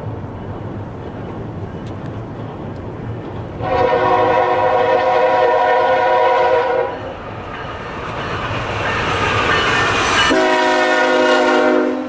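Air horn of an approaching CN freight train led by an EMD SD60 locomotive: a long blast of about three seconds, then a second blast near the end. Between the blasts the train's rumble grows louder.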